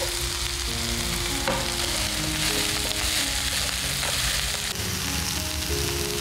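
Chopped garlic chives sizzling in hot oil in a nonstick pan, stirred and tossed with a spatula.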